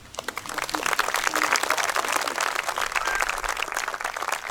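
Audience applauding: many hands clapping, starting suddenly and then holding steady.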